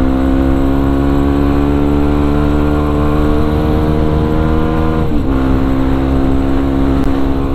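Yamaha WR155R supermoto's single-cylinder four-stroke engine running through an aftermarket racing exhaust while riding, its revs climbing slowly. The revs dip briefly about five seconds in, then hold steady.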